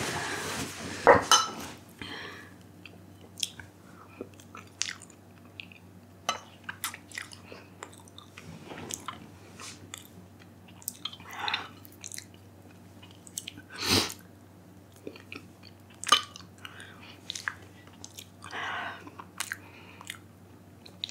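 Close-miked mouth sounds of a woman eating and drinking from a mug after the extremely hot Paqui chip: wet smacks, swallows and scattered clicks, with a few hard breaths, as if through the burn. One louder knock comes midway.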